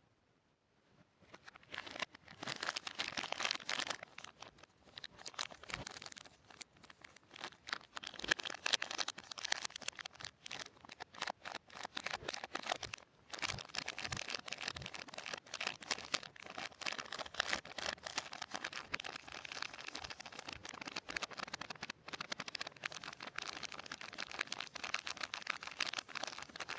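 Soap wrappers being unwrapped by hand, crinkling and tearing with a dense run of small crackles. The sound starts after a near-silent second or two.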